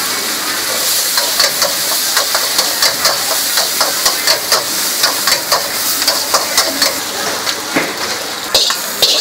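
Noodles and greens sizzling in a hot wok, with a metal spatula scraping and clanking against the wok, about two or three strikes a second, as they are stir-fried.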